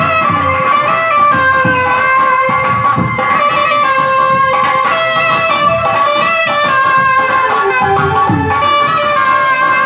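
Loud amplified instrumental music from a live stage band: a melody on a plucked-string or keyboard lead over a steady low beat.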